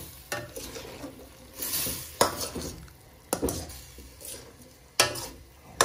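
Spoon stirring chicken and potato chunks in a stainless steel wok, scraping along the pan with four sharp knocks against the metal.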